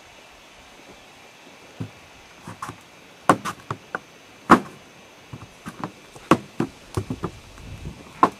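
Irregular sharp cracks and knocks from walking through dry brush, twigs snapping and brush hitting the legs, at a rate of several a second with gaps between.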